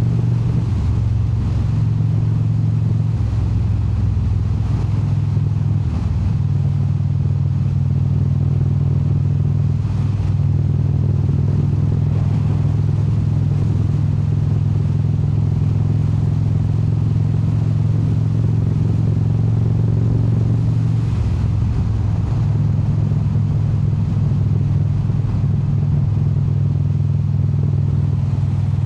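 Indian Super Chief Limited V-twin motorcycle engine running steadily under way. The engine note changes briefly a few times in the first six seconds and again about twenty-one seconds in, then settles back.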